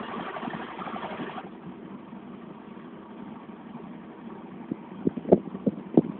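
An engine running steadily, dropping in level about a second and a half in, with a few short knocks near the end.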